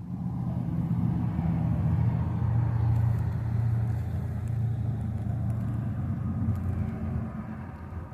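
A low, steady mechanical drone with a hum of several low tones, swelling in over the first second and then holding, with a few faint ticks partway through.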